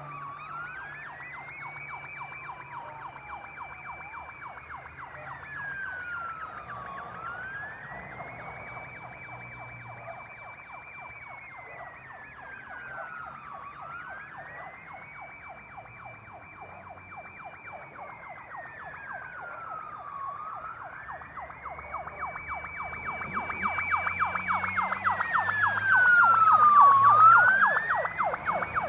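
Emergency vehicle siren on a slow wail: the tone rises, holds a high note and falls again about every six to seven seconds. It grows steadily louder as the vehicle approaches, with its engine heard underneath, peaks as it passes near the end, then drops away.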